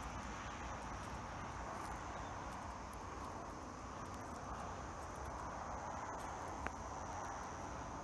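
Ko-ezo-zemi cicada (Lyristes bihamatus) buzzing in a steady, unbroken drone over a low rumble, with one brief click about two-thirds of the way through.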